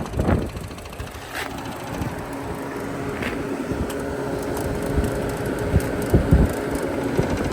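Condenser fan motor of a walk-in cooler's condensing unit running with a steady hum while the compressor is not running; the compressor has stalled and is overheated. A few low knocks and taps come from handling the unit about two-thirds of the way in.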